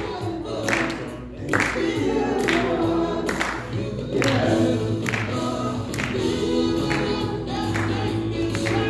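A woman singing a song into a handheld microphone over amplified accompanying music with a steady beat.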